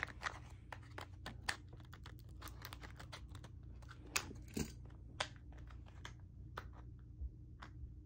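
Scissors snipping into plastic packaging, with the plastic crinkling and crackling: a run of small irregular clicks, a few louder ones near the middle.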